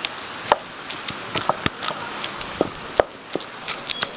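Hot steamed pumpkin being mashed with a handheld masher in a stainless steel bowl: irregular soft knocks and squashing, with a few sharper strikes against the metal bowl that ring briefly.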